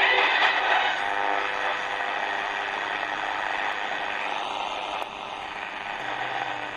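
Shortwave static hissing from the Tecsun R-909 analogue radio's speaker between stations, its sound cut off at the top the way AM reception is. A faint station sound fades into the hiss within about the first second.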